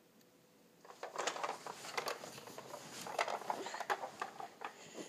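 Close kissing smacks mixed with soft rustling of clothes and movement, an irregular run of small clicks starting about a second in.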